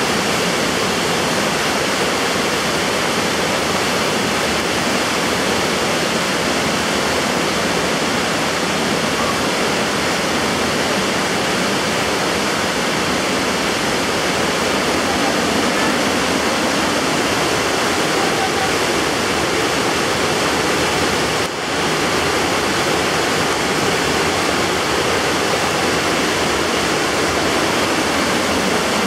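Fast-flowing muddy floodwater rushing across a street and through yards, a loud steady rush of storm runoff after thunderstorms.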